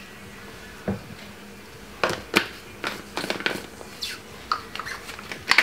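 A thin stream of water poured from a jug into a blender cup of fruit and ice, then a string of light knocks and clicks as containers are handled on the counter.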